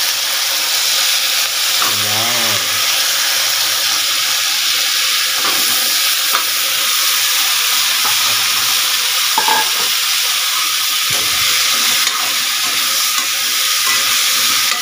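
Vegetables (potatoes, carrots, onion, garlic, chili and bell pepper) frying in hot oil in a wok: a steady loud sizzle, with a few clicks and scrapes of a metal ladle against the pan as they are stirred.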